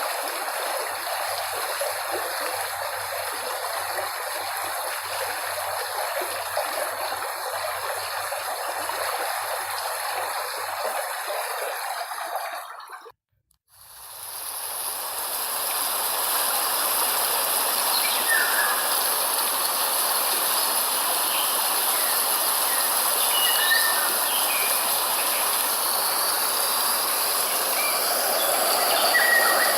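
Steady rushing of flowing water, which fades out about thirteen seconds in to a moment of silence. A brighter, louder steady hiss then fades in, with a few faint bird chirps over it.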